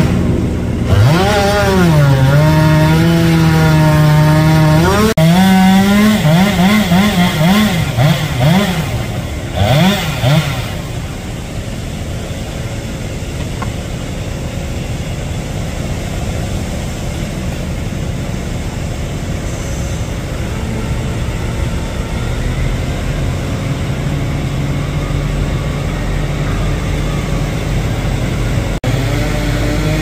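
Chainsaw cutting into a large maple trunk, its pitch wavering under load and then rising and falling in quick throttle revs for about the first ten seconds. After that a quieter, steady engine sound runs on.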